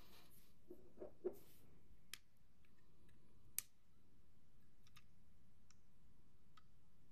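Small 3D-printed plastic robot parts being handled and fitted together: a few sharp plastic clicks and taps, the loudest about three and a half seconds in, with a brief rustle in the first second and a half.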